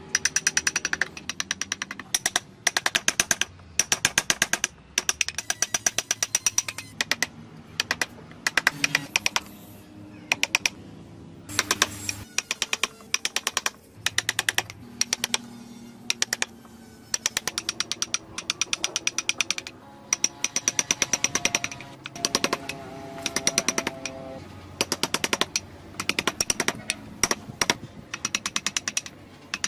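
Hand chisel tapped into wood in rapid runs of sharp clicks, about eight to ten a second, each run lasting about a second with short pauses between.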